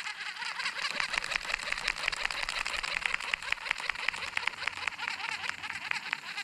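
Fishing reel being cranked steadily, giving a fast, even clicking of about ten ticks a second, as a crankbait is retrieved.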